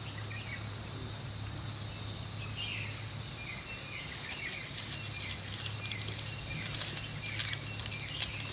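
A bird calling over and over in short falling chirps, about two a second, starting a couple of seconds in, over a steady low hum.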